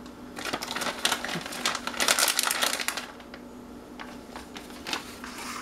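Crinkling of a plastic pouch and rapid light clicking as crumbled bacon bits are sprinkled onto a baked potato, densest about two to three seconds in, then thinning to scattered ticks.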